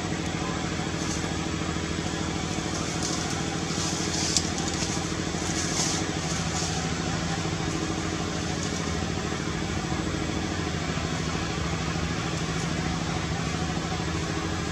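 An engine idling steadily, a low even hum, with a brief sharp click about four seconds in.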